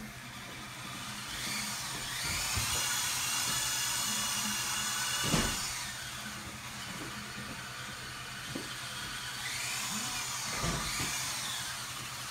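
Small electric motor of an RC truck whining as it speeds up and slows down, in two runs: one from about two to six seconds in, another near the end, with a single knock in the middle. A low steady hum runs underneath.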